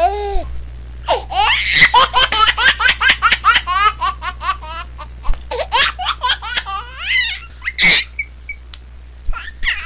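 High-pitched laughter in quick bursts of several a second, running for about six seconds. It is followed by a short, sharp sound about eight seconds in.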